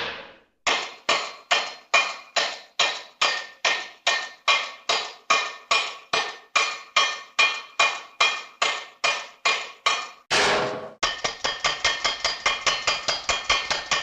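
Old cartoon sound effect: a steady run of ringing, hammer-like knocks, about two or three a second. A short noisy burst comes around ten seconds in, then a faster run of knocks at about five a second.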